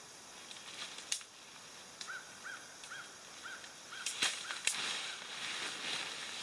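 Nylon tent fabric and mesh netting rustling and flapping as a one-person bed-net tent is collapsed, with a few sharp clicks and snaps, the loudest about 4 s in. In the middle a bird calls a short repeated note about twice a second.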